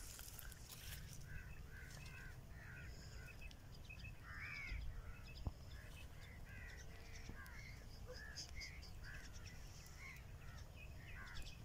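Birds calling: many short calls that rise and fall in pitch, several a second and overlapping, over a faint low rumble.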